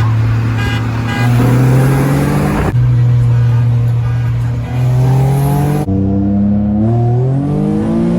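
Car engine accelerating hard, its pitch climbing and then dropping back at each gear change, several times over. The sound jumps abruptly a couple of times, as between separate clips.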